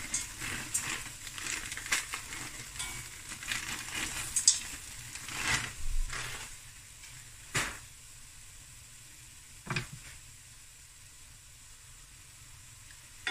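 Frozen peas and corn kernels sizzling and crackling in a hot stainless steel pot, with a few sharp pops every couple of seconds. The sizzle thins out and gets quieter over the last few seconds.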